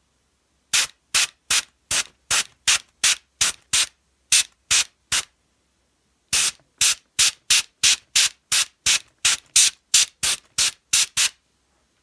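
Airbrush spraying water-thinned poster paint in short pulses of spray, about two to three a second, with a pause of about a second partway through.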